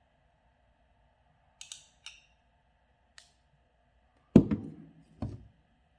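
Handling of a jar of sliced onions steeped in honey: a few light clicks, then two loud knocks about four and five seconds in.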